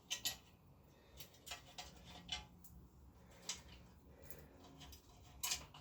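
Scattered light clicks and taps of small parts and hand tools being handled, about nine in all and irregularly spaced, the loudest near the end.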